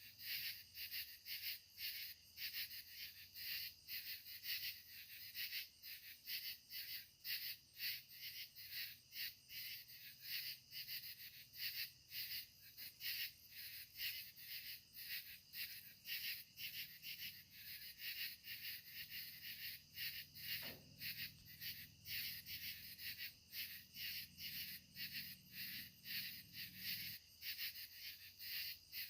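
A chorus of katydids calling, several insects overlapping in short, quick, rhythmic pulses that repeat without pause. A faint low hum sits underneath.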